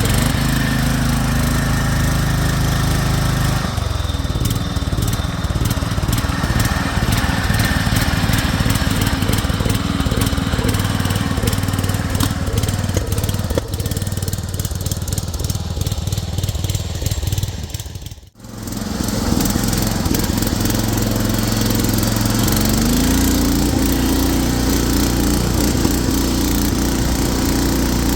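Converted 2011 Craftsman garden tractor's engine running steadily under load, its pitch shifting as the throttle changes and rising in the last few seconds. The sound drops out for an instant about two-thirds of the way through.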